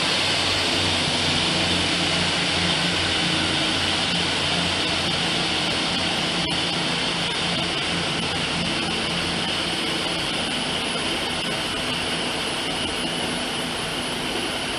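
GWR Class 150 diesel multiple unit pulling away and receding, the drone of its underfloor diesel engines slowly fading, over a steady hiss. A single sharp click about six and a half seconds in.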